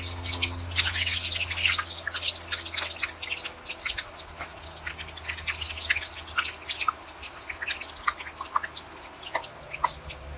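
Hot oil crackling and popping as spiral-cut eggplant deep-fries: sharp irregular pops, dense at first and thinning out, over a low steady hum.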